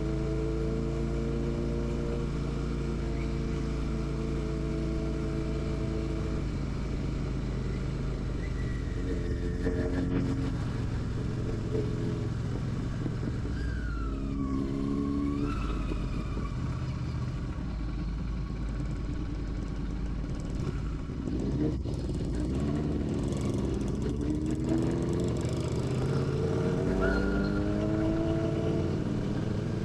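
Royal Enfield Classic 650's parallel-twin engine running on the move, with a low steady rush under it. Its note holds steady at first, fades back in the middle, then climbs again several times in the last stretch as the bike pulls away through the gears.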